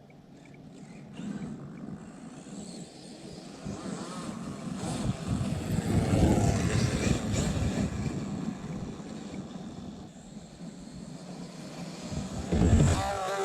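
Traxxas X-Maxx RC monster truck with a Hobbywing brushless motor driving on a dirt track. Its motor whine and tyre noise grow louder as it comes close, about six seconds in, then fade. A loud thump comes near the end.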